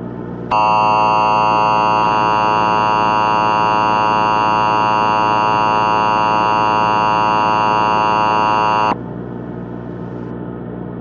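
Emergency Alert System attention signal: a loud, steady, harsh two-tone alarm. It starts about half a second in, holds for about eight seconds, then cuts off abruptly. Under it runs a low, steady droning background.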